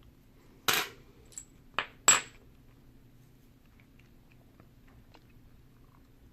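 Small metal lock parts clinking and tapping against a hard surface: four sharp clicks in the first two seconds, two of them with a brief high metallic ring.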